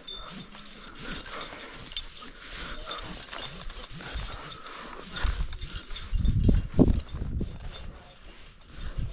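Metal climbing gear, carabiners and hardware, clinking and clicking as it is handled while rigging to descend. Several heavy low bumps come between about five and seven and a half seconds in.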